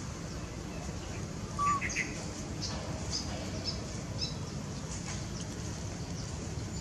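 Birds chirping in short, high calls, the loudest about a second and a half in, then a few more scattered over the next few seconds, over a steady low background noise.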